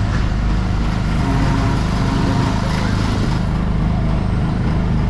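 Small gasoline engine of an Autopia ride car running steadily as the car is driven along the track.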